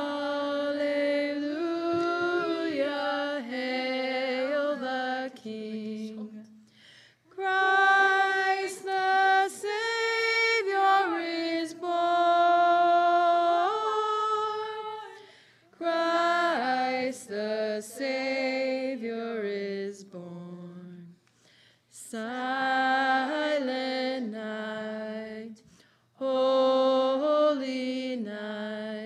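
A group of women's and girls' voices singing a Christmas carol unaccompanied, in phrases a few seconds long with short breaks between them.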